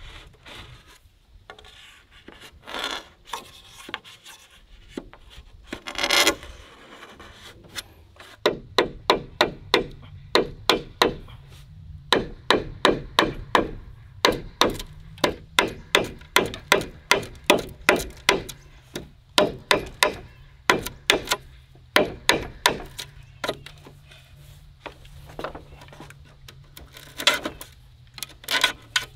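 A large knife chopping into hollow bamboo poles with sharp, rapid strikes, about two to three a second, in runs with short pauses, as a notch and hole are cut into a bamboo tube. A few scattered scraping sounds of blade on bamboo come before the chopping starts.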